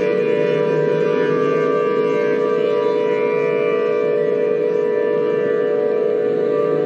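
Siren tone held loud and steady at one pitch, layered over droning electronic music.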